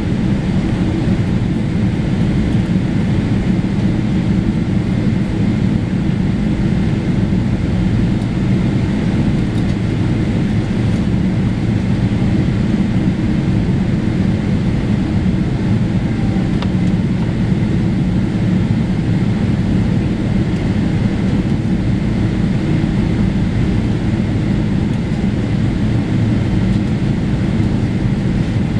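Boeing 747-400 jet engines at idle as the airliner taxis: a steady, loud rumble with a thin, constant whine.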